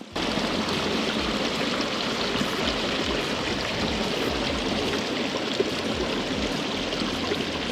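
Rushing mountain stream: a steady, loud wash of running water, swollen after a day of rain.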